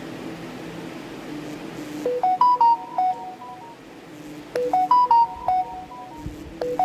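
A phone ringtone: a short tune of clear single notes, starting about two seconds in and repeating about every two and a half seconds, over a steady low hum.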